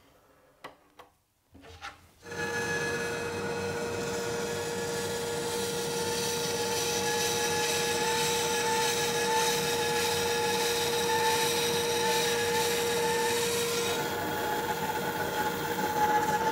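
Bandsaw running and cutting a thick hardwood board along a traced curve: a steady hum with a constant tone over the sound of the blade in the wood. It comes in about two seconds in, after a few faint taps.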